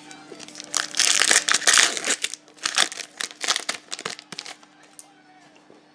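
A trading-card pack wrapper crinkling as it is handled and crumpled. There is a dense burst of crinkling around the first two seconds, then scattered crackles that die away after about four and a half seconds.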